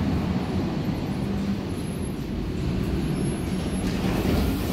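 Berlin U-Bahn F-series train rolling in along the platform and slowing to a stop: a steady low rumble of wheels and running gear, a thin high whine in the middle, and a hiss rising near the end.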